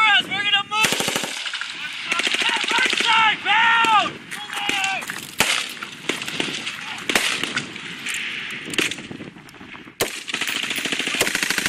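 Machine-gun and rifle fire on a live-fire range: long strings of rapid automatic shots overlapping with single cracks from several weapons.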